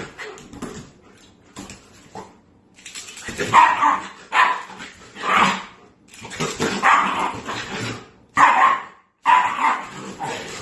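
A dog barking repeatedly, loud single barks about one a second from about three seconds in.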